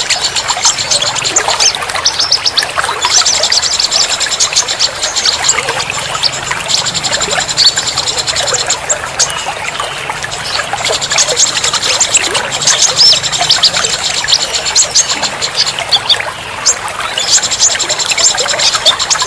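Many small songbirds chirping and trilling at once in dense, fast bouts, over a steady trickle of running water.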